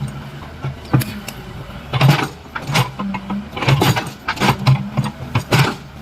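Hydraulic excavator's diesel engine running, with a quick series of sharp knocks and metallic clanks as the machine breaks up reinforced-concrete road slab.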